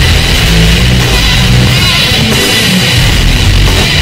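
Hard rock entrance theme with distorted electric guitar and drum kit, heavily bass boosted so the low end is strong and constant.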